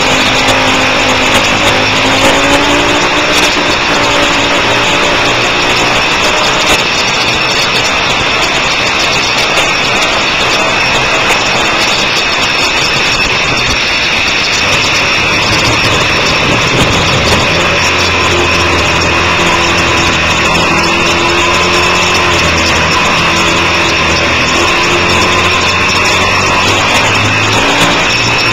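Twin-cylinder sport motorcycle engine heard onboard at track speed, pulling hard with its pitch climbing in the first few seconds, then holding a steady note later on. A constant rush of wind runs underneath.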